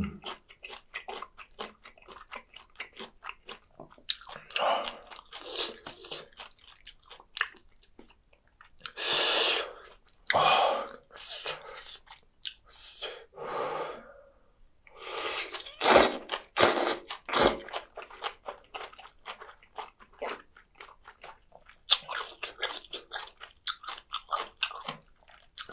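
Close-miked chewing of spicy soupy boneless chicken feet and bean sprouts: quick wet mouth clicks and crunching throughout, broken by several louder slurps of broth and sprouts, the biggest about nine to ten seconds in and again around fifteen to seventeen seconds in.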